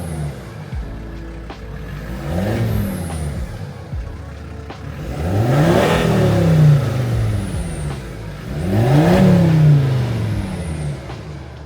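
Volvo V40 D3 five-cylinder diesel revved through an aftermarket 3-inch KMS Section 18 exhaust: two short blips, then two bigger revs about 6 and 9 seconds in, each rising and falling back to idle.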